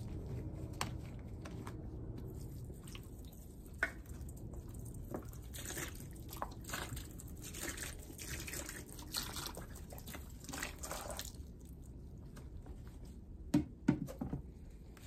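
Domestos bleach pouring from a plastic bottle onto wet sponges in a plastic bucket, glugging and splashing for several seconds midway. A few knocks come near the end.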